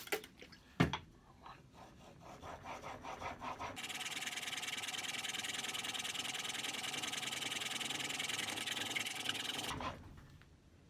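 Spokeshave blade held in a honing guide, rubbed back and forth on a sharpening waterstone to hone a micro bevel. A knock about a second in, then a few separate scrapes that grow louder, then a fast, even rasping for about six seconds that stops abruptly near the end.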